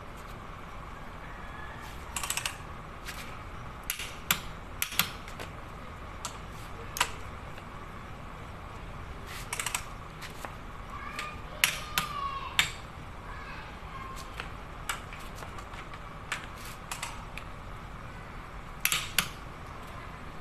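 Long-handled ratchet wrench clicking in short, irregular runs of sharp metallic clicks as connecting-rod cap bolts are tightened, over a steady low hum.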